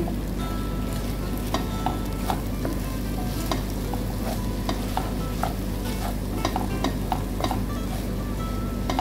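A spatula stirring mixed vegetables in a granite-coated frying pan, with irregular scrapes and taps against the pan over a light sizzle. The vegetables are cooking dry in their own released moisture, with no water added.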